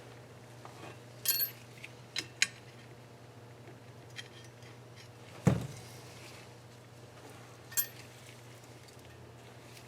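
Small steel parts and hand tools clinking against an engine's cylinder head: a few sharp metallic clicks, with one heavier knock about halfway through, over a steady low hum.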